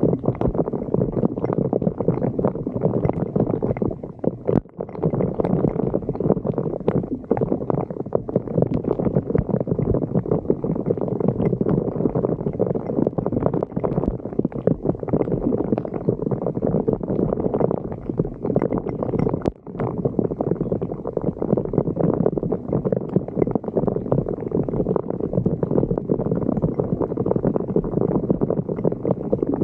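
Floodwater gurgling and churning steadily as it drains down a street sewer inlet, with two brief drops in level.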